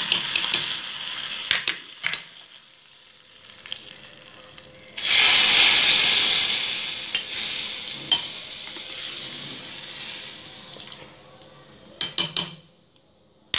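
Hot oil tempering (tadka) sizzling as it is poured into a pot of sambar, fading over a couple of seconds. A second, louder burst of sizzling about five seconds in dies away slowly, and a few sharp metal clicks come near the end.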